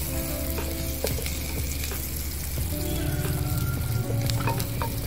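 Chopped garlic and onion sizzling in hot oil in an earthenware pot, stirred with a wooden spatula that scrapes and clicks against the pot now and then.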